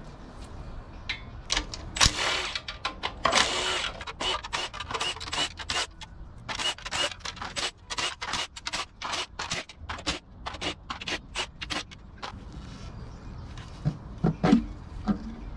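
Irregular run of sharp metallic clicks and clatter from hand tools and engine parts being worked on during an engine teardown, with two short, louder noisy bursts a few seconds in.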